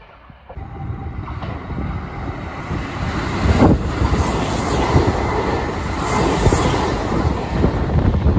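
Electric commuter train running close past the platform: steady wheel-on-rail rumble with scattered low thumps, and wind buffeting the microphone. The noise starts suddenly about half a second in.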